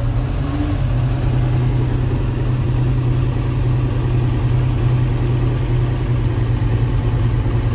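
Loader tractor's diesel engine idling steadily just after a hard cold start, heard from inside the cab.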